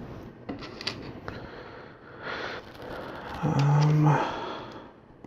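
LEGO plastic bricks clicking and rattling as they are handled and snapped together, a few light clicks in the first two seconds. Around the middle comes a short hummed breath from the builder, the loudest sound.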